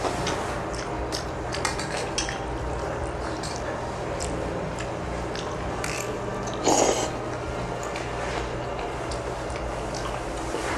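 Eating utensils clicking against bowls and dishes while eating, in frequent short clicks over a steady low hum, with one louder, longer noisy sound about seven seconds in.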